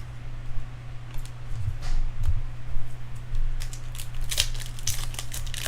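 Baseball card packs and cards being handled: wrapper crinkling and tearing and quick scraping strokes of cards sliding, growing busier about halfway through.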